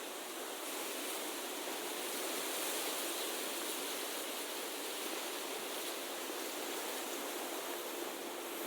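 Steady, even rushing hiss of outdoor ambience, with no distinct events and no low rumble.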